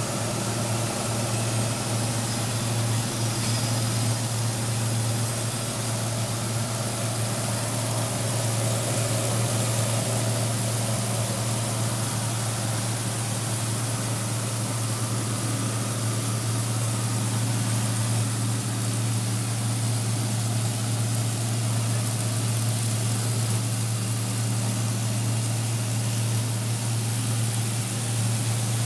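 Belt-driven dry coffee huller running steadily while dried coffee is fed through it: a continuous, unchanging low hum with a hiss above it.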